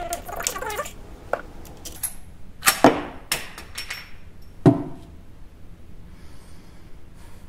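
Brass .30-30 cartridges being pushed one by one through the loading gate of a Winchester Model 94 lever-action rifle into its tube magazine: a series of sharp metallic clicks and clacks, the loudest near three seconds and near five seconds in.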